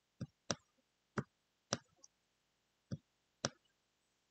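About seven sharp, irregularly spaced clicks from a pen-input device as handwriting is put down stroke by stroke, with quiet between them.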